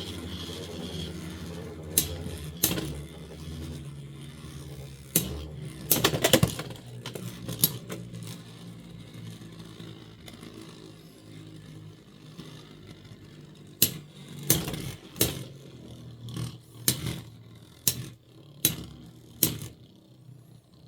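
Two Beyblade X spinning tops, Blackshell and Hell's Chain, whirring in a plastic stadium in a stamina battle. The hum fades as they slow. Sharp clacks sound as they collide and strike the stadium wall, a few early on and then about one a second in the last several seconds.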